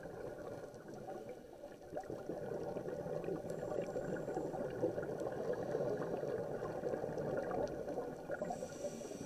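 Underwater ambience picked up by a camera in its waterproof housing: a steady hiss with a fine crackle running through it, growing a little louder in the middle.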